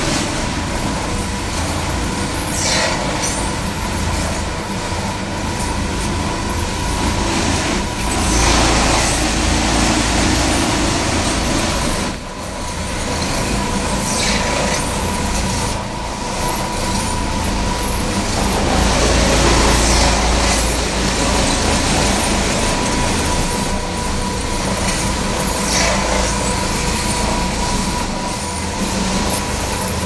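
Maxis automatic carpet washing machine running, its rotating brush discs scrubbing a wet, foamy carpet: a steady motor hum under a dense hiss of brushes and water.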